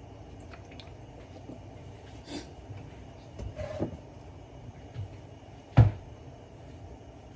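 Kitchen handling noises: a few light knocks and clunks of things being picked up and set down, then one sharp, louder knock about six seconds in.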